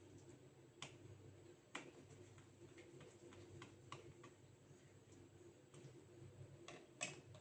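Faint, scattered clicks and taps of small tools and plastic and metal laptop parts being handled during laptop repair work, over a low steady hum; the sharpest click comes near the end.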